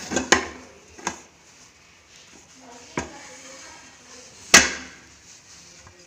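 Steel cooking pot knocked against a plate while a baked cake is turned out of it upside down: a few light knocks, then one loud sharp knock about four and a half seconds in.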